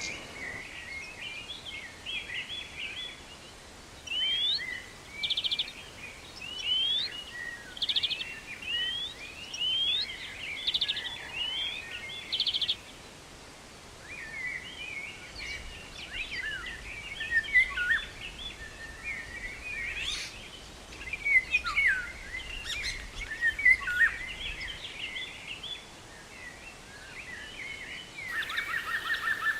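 Songbirds singing, with many overlapping short chirps and quick trills over a steady faint background.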